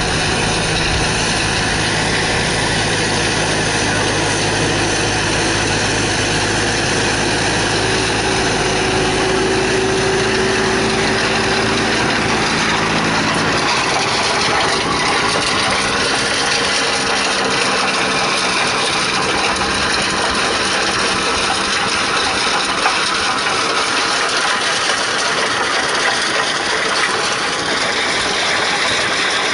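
Tractor engine running steadily while driving a tractor-mounted Seppi M stone crusher across stony ground, with a continuous grinding mechanical noise. The low engine drone weakens about halfway through, leaving mostly the steady noise of the machinery.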